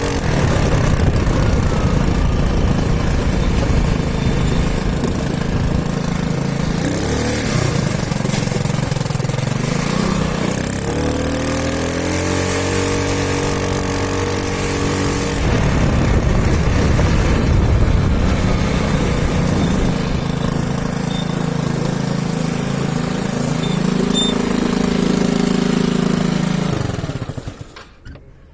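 Small motorcycle engine running, mostly steady, with its revs rising and falling a few times. The engine stops about a second before the end.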